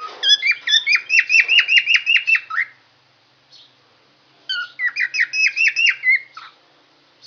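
Yellow lovebird singing: two quick runs of sharp, repeated chirps at about five a second, each run lasting two to three seconds, with a short pause between them.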